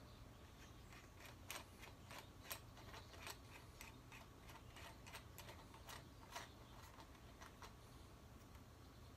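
Faint, irregular metallic clicks from a homemade threaded-rod headset press being tightened by hand, pressing the bearing cups into a bicycle head tube, over a low steady hum.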